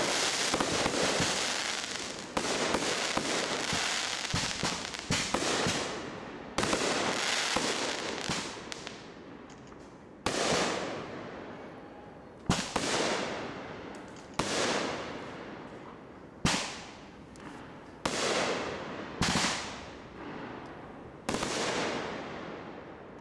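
Aerial fireworks going off: a dense run of overlapping bursts and crackle for the first several seconds, then single sharp bangs about every one to two seconds, each trailing off in crackle and echo.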